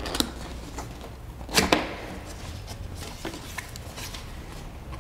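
Hard cardboard box lid and flaps being pulled open by hand: a few sharp scrapes and clicks, the loudest about one and a half seconds in, over a faint low hum.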